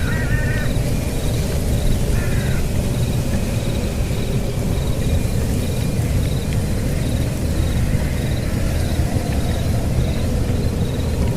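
Forest ambience: a steady low rumble with a rain-like hiss, a faint high insect-like chirp repeating about twice a second, and two short animal calls in the first few seconds.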